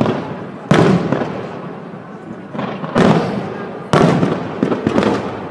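Aerial firework shells bursting overhead: three big booms about a second in, at three seconds and a second later, then a couple of lighter bangs. Each is followed by a long rolling rumble that dies away.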